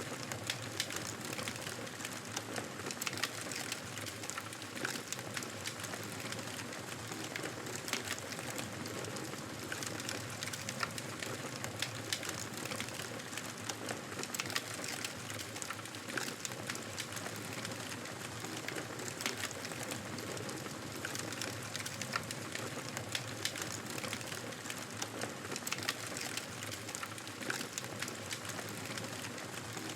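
Wood fire crackling in a fireplace: frequent sharp pops and snaps over a steady soft hiss.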